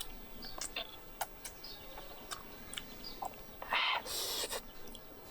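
Close-up eating sounds of snake fruit: scattered short mouth clicks and smacks, then a louder crunching bite about three and a half seconds in.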